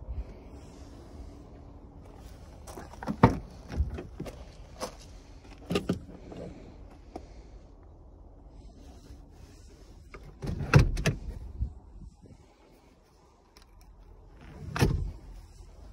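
A few sharp clunks and knocks from handling a junked Ford Mustang's door and front seat, the last loud clunk as the seatback lever is worked and the seat tips forward.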